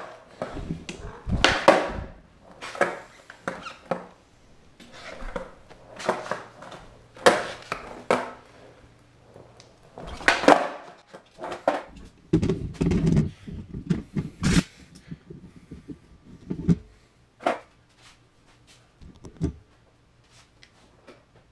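Skateboard knocking and clacking on a concrete floor as it is handled and ridden: a string of sharp knocks and thuds, roughly one a second, with a denser rattle about twelve seconds in, thinning out near the end.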